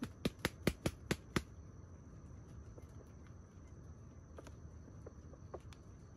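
Red junglefowl rooster flapping its wings: a quick run of about seven sharp wing claps in the first second and a half. A steady high insect hum runs beneath.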